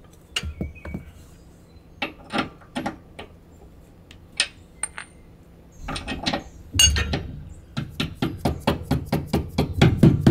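A few scattered metallic clicks as a steel wet bolt is handled and set into the trailer's leaf-spring hanger. Past the halfway point come a quick, even run of light taps, about four a second, as a soft mallet drives the greaseable bolt through the bronze bushing.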